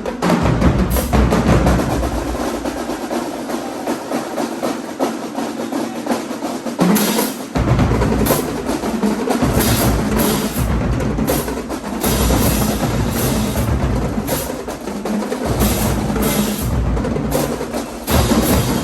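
Marching band drumline playing a cadence of snare drums and bass drums. The low drums drop out twice for a few seconds while the snares carry on.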